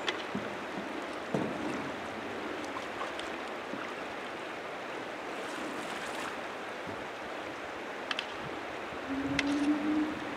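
Steady rush of river water, with a few faint knocks and a short low steady tone near the end.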